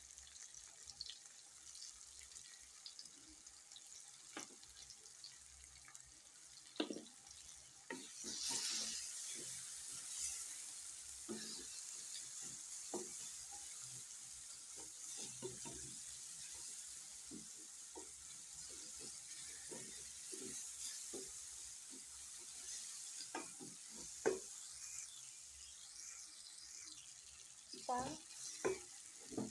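Chopped tomatoes, onions and powdered spices frying in oil in a stainless steel pan, sizzling, while a wooden spoon stirs and scrapes through them with scattered knocks against the pan. The sizzle grows louder about eight seconds in.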